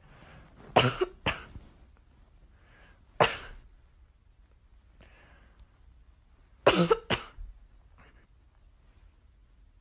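Short, sharp coughs: a pair about a second in, one a little after three seconds, and another pair near seven seconds.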